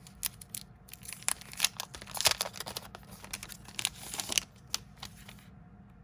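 Packaging being torn open and crinkled by hand to unwrap a small paper tablet, a dense run of crackles that is busiest through the middle and dies away near the end.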